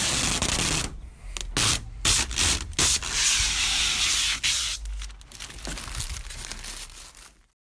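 Protective plastic film being peeled off a polycarbonate hatch panel: a loud crackling, rustling noise full of sharp crinkles that stops abruptly near the end.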